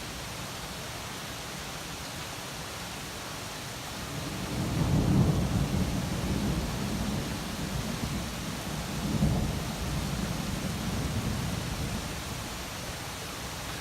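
Thunderstorm: a steady hiss of rain with a long, low roll of thunder that builds about four seconds in, swells twice and dies away near the end.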